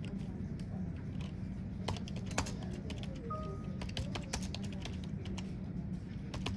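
Typing on a computer keyboard: a quick, irregular run of key clicks over a steady low hum.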